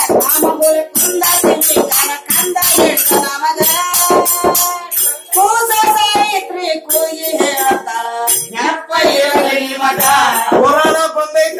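Gigi pada folk song: a woman singing loudly while beating a large frame drum with her hand, with small hand cymbals clinking in rhythm and men's voices joining.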